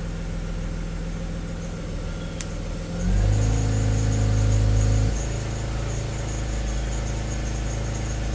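1998 BMW 528i's 2.8-litre inline-six engine running, revved up and held higher for about two seconds from about three seconds in, then dropping back to idle. A brief click about halfway through the idle before the rev.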